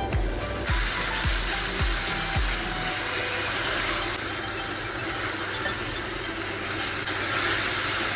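Background music with a steady low beat that drops out about two and a half seconds in, over a steady hissing noise that carries on throughout.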